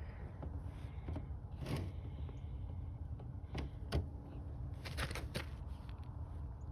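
Fishing tackle being handled close to the microphone while a tangled line is worked loose: scattered small clicks and rustles, a few at a time, over a steady low rumble.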